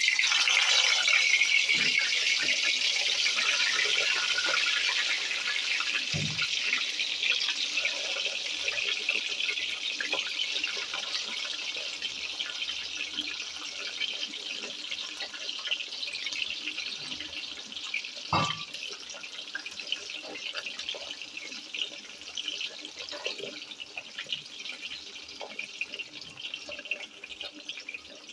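Thread-bound, keema-stuffed bitter gourds (karela) sizzling in hot oil, loudest at first and slowly dying down. Two short knocks, about six and eighteen seconds in.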